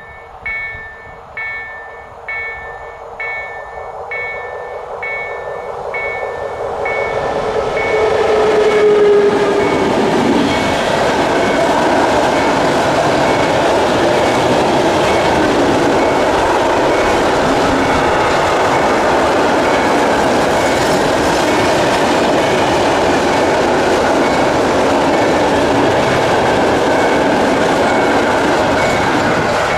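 Level-crossing warning bell ringing about once every three-quarters of a second, then a freight train comes through. The front of the train passes about nine seconds in with a tone that drops in pitch, followed by a long, steady run of open freight wagons rolling over the crossing, whose clatter starts to fade near the end.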